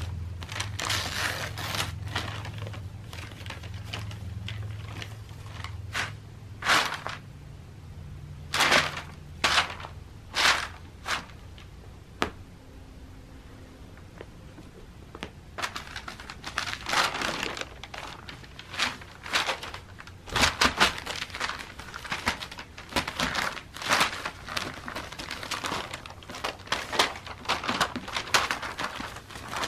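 Paper advertisement flyers rustling and crinkling as a cat paws, bats and pushes its head into them, in irregular bursts that come thick and fast in the second half.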